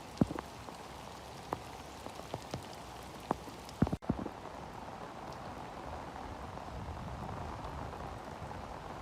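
Storm rain with hailstones: a steady rain hiss with sharp, scattered knocks of hail striking hard surfaces, mostly in the first half and fewer after.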